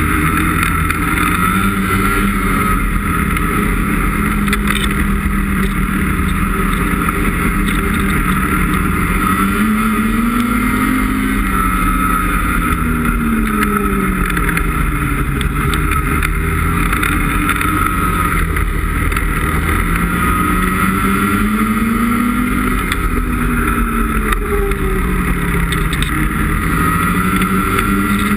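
2017 Ski-Doo 850 E-TEC snowmobile's two-stroke twin-cylinder engine running under way on a trail. Its pitch rises and falls several times as the throttle is opened and eased off.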